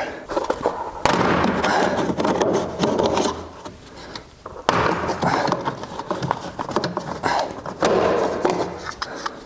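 Irregular scraping and rubbing of tools and parts being worked loose during dashboard removal, with a lull about three and a half seconds in.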